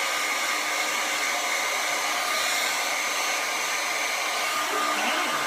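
Hair dryer fitted with a silicone collapsible diffuser, running steadily at a constant whoosh of air.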